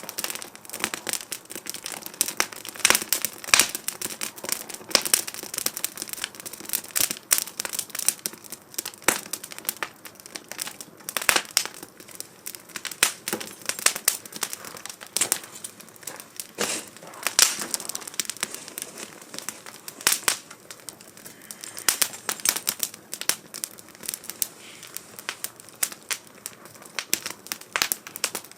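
Wood fire crackling in a 2×4 STOVE fire pit: irregular pops and snaps of burning wood over a soft steady hiss, with louder cracks scattered throughout.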